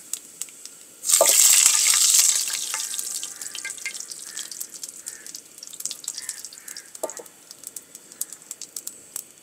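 Whole cumin seeds frying in hot oil in a non-stick frying pan, stirred with a silicone spatula. A loud sizzle rises about a second in and fades over the next couple of seconds, then settles into a lighter sizzle with scattered crackles and clicks.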